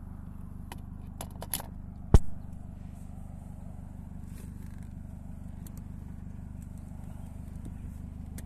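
Car engine idling steadily, with a few light clicks and one sharp knock about two seconds in.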